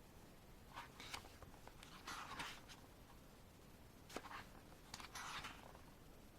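Photobook pages being turned by hand: several soft paper swishes spread a second or so apart, with a light click a little after four seconds, against near silence.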